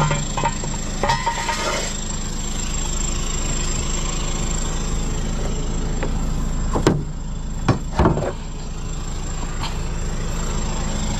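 Tow truck engine idling steadily, with a few short knocks about seven and eight seconds in.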